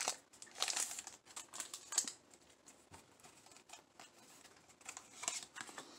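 Faint rustling and crinkling of a foil trading-card booster pack wrapper as it is opened, and the cards being slid out and handled, in short scattered rustles and light clicks with a quiet stretch in the middle.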